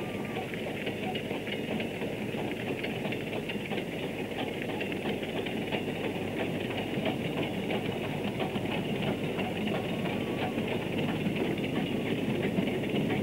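South Maitland Railways 10 class 2-8-2T steam tank locomotives hauling a coal train: a steady rush of exhaust and rolling, clanking wagons that grows slowly louder.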